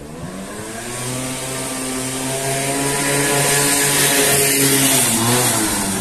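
A motor vehicle passing close by: a steady engine hum that grows louder, peaks about four to five seconds in, then drops a little in pitch and fades as it goes past.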